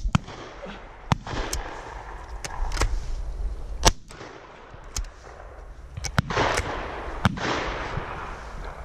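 Shotguns firing on a driven pheasant shoot: about ten sharp reports at uneven intervals from several guns, some close and some farther down the line, the loudest about four seconds in.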